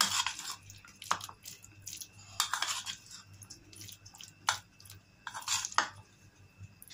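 A spoon scraping and clinking against a plate while stirring a moist filling: a few short scrapes with a couple of sharp clinks between them.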